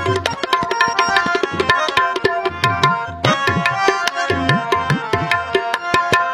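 Instrumental interlude of a Punjabi devotional song: tabla playing a quick, steady rhythm, its bass drum bending in pitch, over sustained melody instruments. There is a brief break about three seconds in.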